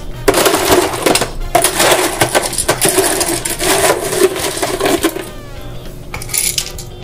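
Small ice cubes clattering and clinking as they are scooped with a metal ice scoop and poured into a tall glass over muddled lime and sugar. The clatter runs for about five seconds, then eases off.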